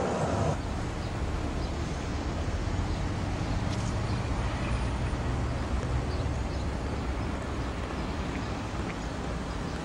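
Steady low rumble of distant city traffic, after a louder passing vehicle that cuts off about half a second in.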